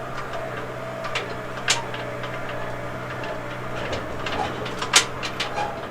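A vehicle's engine running steadily, with scattered clicks and rattles over it; one sharp click about five seconds in is the loudest.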